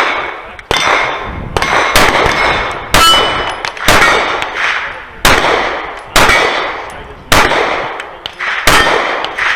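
A course of pistol fire from a Sig P320 Carry, about eight shots spaced roughly a second apart. Each shot is followed by the ring of the steel plate it hits.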